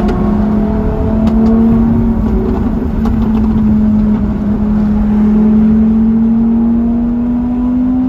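Supercar engine heard from inside the cabin at highway cruise, a steady drone that rises slowly in pitch as the car gently gains speed, over low road and wind noise.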